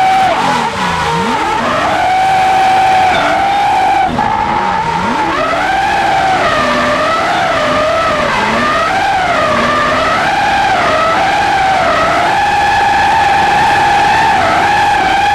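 BMW E92 M3 drift car's engine held at high revs while the rear tyre spins and skids, pouring smoke. The pitch holds steady, drops briefly twice, then wavers up and down as the throttle is worked before steadying again.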